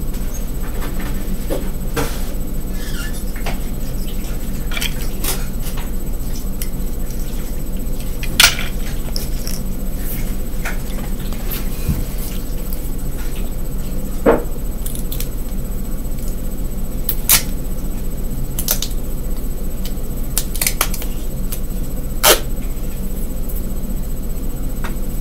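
Hands handling tape and small plastic toy trucks on a wooden table: scattered light clicks and crinkles over a steady low hum, with a few sharper clicks, the loudest about eight seconds in.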